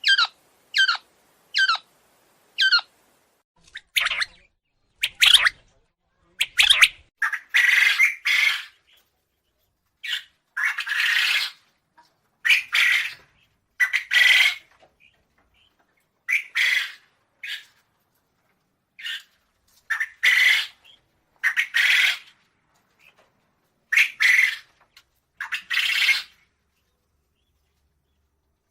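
Quail calling: a run of short, falling chirps about twice a second, then, from about four seconds in, harsher, rasping calls in groups of two or three with short pauses between.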